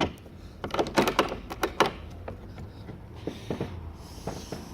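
Sharp clicks and knocks of a Lockwood 001 deadlatch and its door being worked, a dozen or so, busiest around one to two seconds in. The lock is misbehaving: its deadlock plunger is catching on the door frame.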